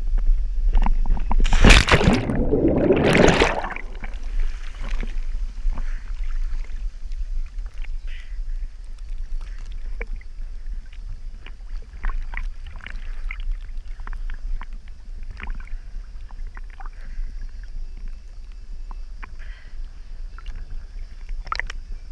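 Sea water splashing and sloshing against a camera held at the surface: two loud splashes about two seconds in, then small waves lapping with a steady low rumble and scattered little drips and ticks.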